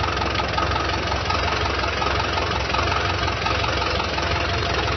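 Hino truck diesel engine idling steadily, heard close up in the open engine bay.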